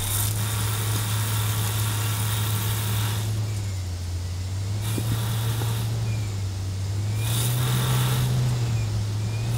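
CNC lathe turning a steel bar with a CoroTurn Prime insert: a steady low spindle hum, with hissing cutting noise while the tool is in the cut. The hiss fades for a second or two about three seconds in as the tool pulls clear, then returns in shorter passes. The hum steps up slightly in pitch near the end.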